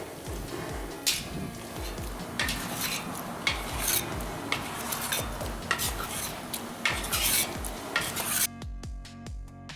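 Cooking sounds: sharp clinks of utensils on cookware over a steady hiss, with a steady music beat underneath. About a second before the end, the cooking sounds stop and only the music plays.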